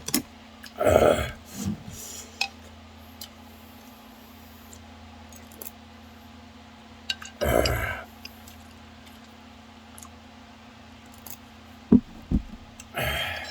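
A person slurping mala ramen three times, loudly: about a second in, about halfway through, and near the end. There are a few light clicks shortly before the last slurp, over a faint steady hum.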